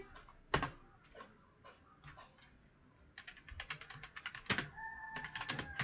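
Typing on a computer keyboard: a few scattered key taps, then rapid typing from about three seconds in.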